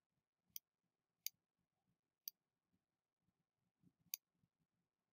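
Four faint, sharp computer mouse clicks, unevenly spaced, over near-silent room tone.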